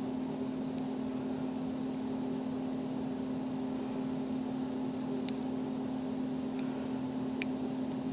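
A steady low hum, with about five faint, light clicks scattered through it: a lock pick working the pins of a Master Lock padlock under tension.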